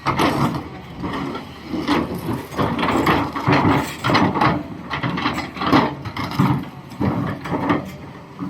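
Doosan DX390 excavator's steel bucket scraping and knocking against quarry rock: a rough, irregular grinding of stone on steel in uneven bursts, starting suddenly.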